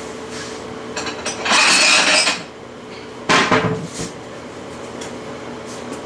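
Kitchenware being handled: a clattering scrape lasting under a second about a second and a half in, then a shorter knock about three seconds in, over a steady low hum.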